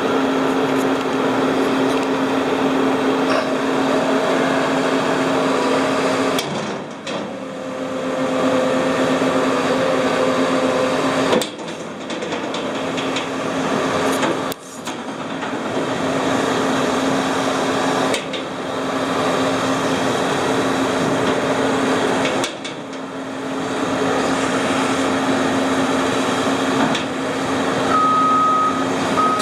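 CAT 329E track excavator's diesel engine running steadily, its sound dipping briefly several times. Near the end a travel alarm starts beeping at a steady high pitch.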